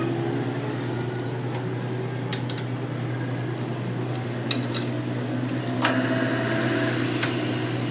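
Scattered light metallic clinks and knocks, as of steel tools and parts being handled, over a steady low hum. A hissing noise comes in for about a second and a half in the second half.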